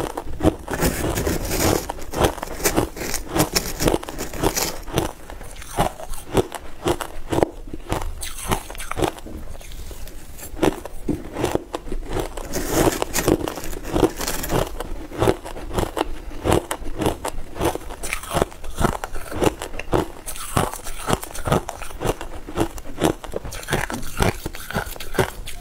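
Crushed ice chewed between the teeth close to the microphone: a rapid, continuous run of crisp crunches and crackles, with a metal spoon scraping through crushed ice in a plastic tub.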